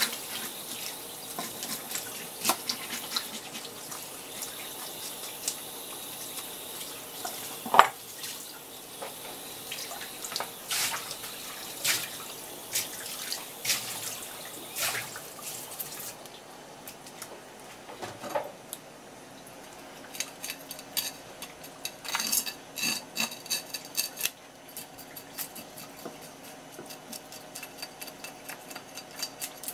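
Tap water running from a hose onto a red sea bream while its scales are scraped off, with scattered clicks and knocks. About halfway through the water stops, and rapid scratching of a knife blade scraping scales off the fish follows.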